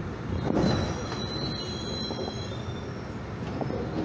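Passenger train running, heard from an open coach doorway: a steady rumble of wheels on rail with a louder surge about half a second in. Then high metallic wheel squeal, several thin tones held for about two seconds before fading.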